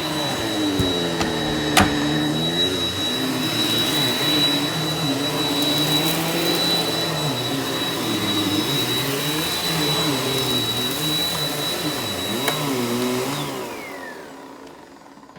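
Eureka NEU180B Power Speed upright vacuum cleaner running on carpet: a steady motor whine over a hum that wavers as it is pushed back and forth, with a couple of brief clicks. Near the end it is switched off and the motor winds down, its pitch falling.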